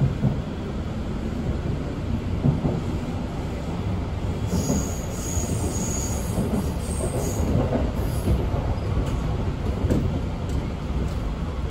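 Kintetsu local electric train running along the rails, heard from the cab: a steady rumble of wheels on track, with a faint high squeal for a few seconds in the middle.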